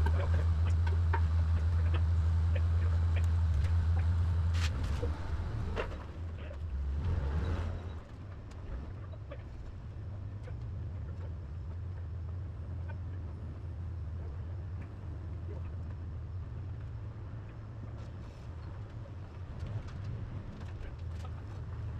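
A loud, steady low hum, like an engine or motor running, that drops away about five seconds in. It leaves a quieter background with scattered light clicks.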